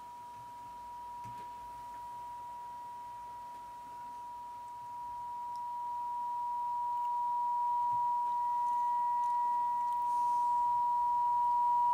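A steady pure sine-wave test tone from the amplifier bench test, holding one pitch while it is turned up and grows steadily louder, with the level being raised toward the point where the amplifier clips. A faint second, higher tone joins it about two-thirds of the way through.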